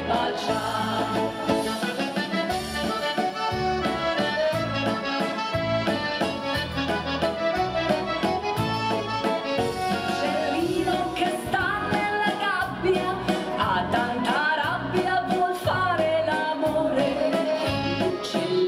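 Instrumental passage of an Italian ballo liscio waltz song, with an accordion playing the melody over a backing track and a steady, regular bass beat.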